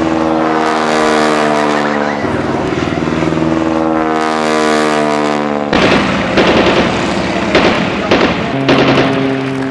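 Propeller plane's engine droning steadily as it flies over, its pitch stepping once about two seconds in. About six seconds in the sound turns rougher with several sharp cracks, and a steady engine tone returns near the end.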